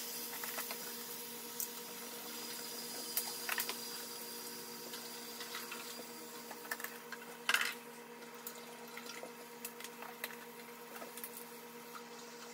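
Bottled water being poured from plastic water bottles into an electric hot pot, a soft splashing pour with scattered crinkles and clicks of the plastic bottles, the loudest a little past halfway. A faint steady hum runs underneath.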